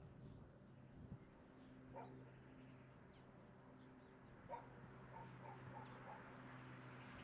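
Near silence with a dog barking faintly a few times, in a quick series about five seconds in, over a faint steady hum.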